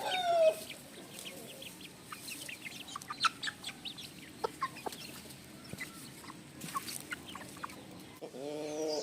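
Aseel chickens: a falling call at the very start, then scattered short chirps and clucks, and an Aseel rooster begins a long crow near the end.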